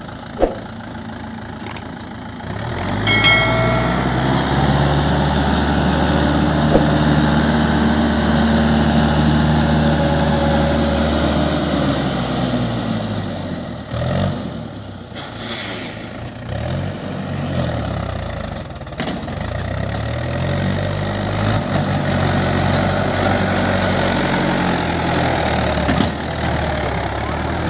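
Mahindra 475 DI tractor's four-cylinder diesel engine running while towing a loaded brick-machine trailer. It picks up about three seconds in, holds a steady note, then rises and falls in pitch a few times in the second half as the throttle changes.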